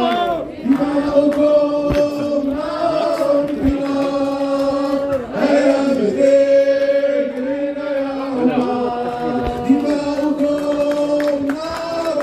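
A chorus of men's voices singing a party anthem in unison, in long held notes with slow changes of pitch.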